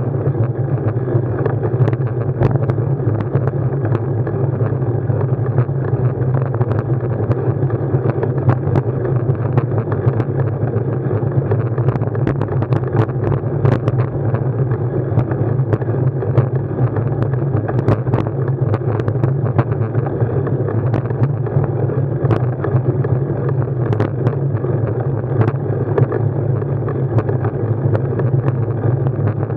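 Steady wind and road rumble on a mounted action camera's microphone during a ride, dull and low, with frequent small knocks and rattles from bumps.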